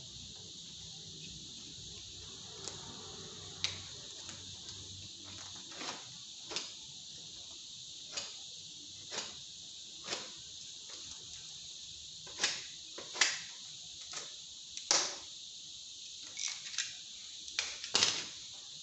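Packing tape being cut, ripped and peeled off the taped end cap of a PVC pipe shipping tube: a run of short, irregular rips and scrapes, the loudest near the end. Crickets chirr steadily underneath.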